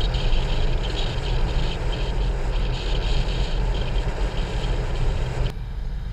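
Wind noise and the low rumble of a moving motorcycle, heard from a camera mounted on the bike. The rushing hiss drops away suddenly about five and a half seconds in, leaving mostly the low rumble.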